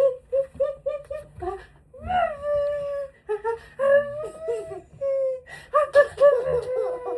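A baby babbling and whimpering in short, high-pitched vocal sounds: a quick run of little syllables at first, then longer sounds that slide up and down.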